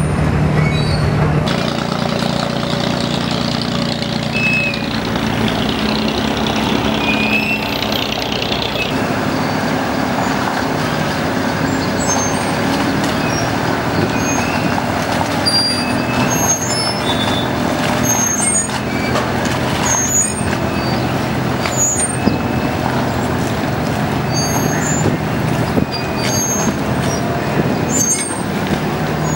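Inboard diesel engines of wooden abra ferry boats running steadily, a low hum whose tone changes twice.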